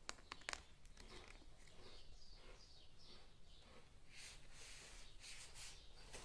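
Long-haired guinea pig eating strawberry tops: faint nibbling and crunching, with a few sharp clicks near the start and a cluster of them about four to six seconds in.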